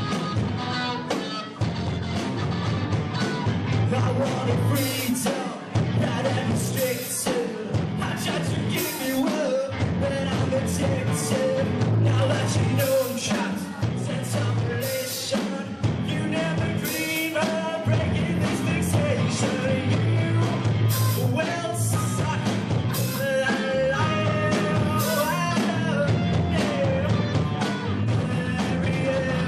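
A band playing a rock song live, a singer carrying the melody over drums and a heavy low end.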